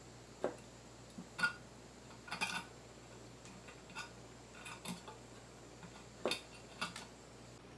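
Light clicks and scrapes of a hand tool working the wire terminals on a small loudspeaker's metal frame, about eight separate taps spaced irregularly.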